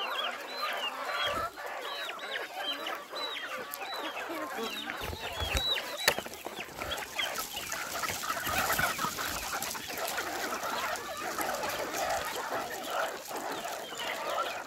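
A flock of chickens clucking and calling as they crowd in to peck at a food treat, with many short, high, arching calls in the first half and a busier jumble of clucks after. A single sharp knock about six seconds in.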